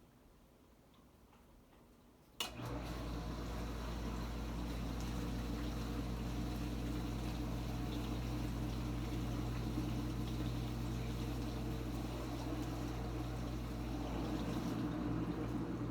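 Kenmore Ultra Wash 3 dishwasher's pump motor kicking in with a click about two seconds in, then running steadily with a low hum and the sound of water splashing inside the tub during the Quick Rinse cycle.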